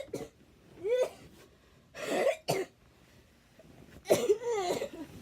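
A sick person coughing in a run of about five harsh coughs with short pauses between them, the last one, near the end, longer than the rest.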